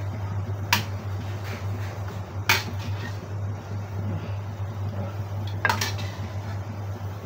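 Metal slotted spatula scooping tofu out of a wok and clinking against the wok and a ceramic plate: three sharp clinks a couple of seconds apart, over a steady low hum.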